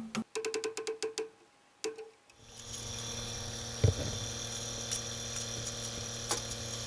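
Guitar background music trails off in the first couple of seconds. After a short gap, an engine starts running steadily at idle, with a couple of faint knocks.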